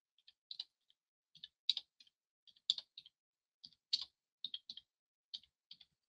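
Computer keyboard keys clicking in short, irregular clusters of two or three strokes with brief pauses between, faint and sharp.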